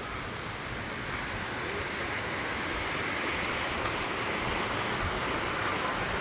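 Valley stream water rushing: a steady noise that grows a little louder over the first few seconds.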